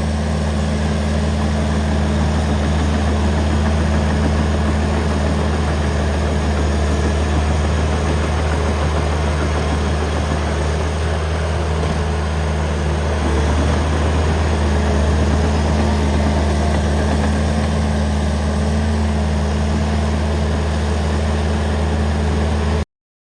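An engine running steadily at idle, even in pitch and level throughout, cutting off abruptly near the end.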